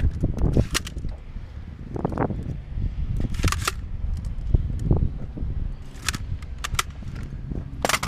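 Pneumatic nailer on an air hose firing nails down into a wooden plate: sharp shots every second or few, some in quick pairs, with a run of four in the last two seconds.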